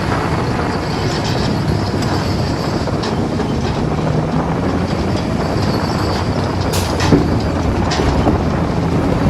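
JCB 3DX backhoe loader's diesel engine running steadily under work, with a high metallic squeal and a few sharp metal knocks about seven to eight seconds in.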